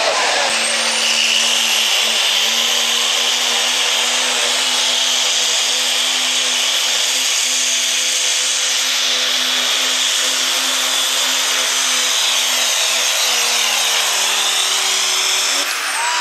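Modified diesel 4x4 pickup at full throttle pulling a weighted sled. A steady, loud engine drone runs under a very high turbocharger whistle that climbs in the first second and holds. Near the end the whistle and engine pitch fall away as the throttle comes off.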